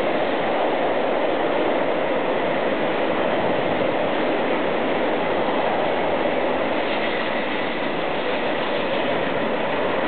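Coal train's hopper wagons rolling past with a steady rumble of steel wheels on rail.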